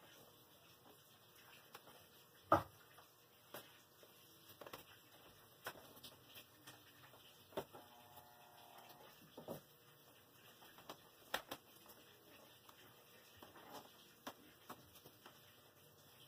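Faint, irregular clicks and ticks over quiet room tone, with a louder knock about two and a half seconds in and another sharp click near eleven seconds, and a brief buzzing tone around eight seconds in.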